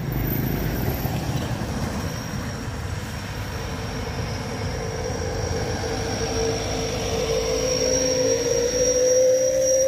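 Mitsubishi Fuso intercooler truck's turbocharged diesel engine pulling hard up a steep climb, a steady rumble with a tone that rises slowly in pitch and gets louder toward the end.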